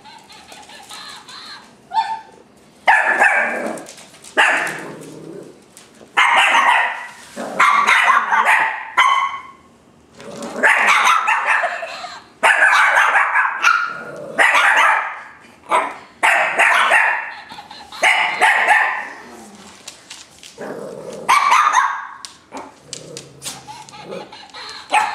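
Shih Tzus barking over and over in short loud bursts, excited barking as they play with a toy.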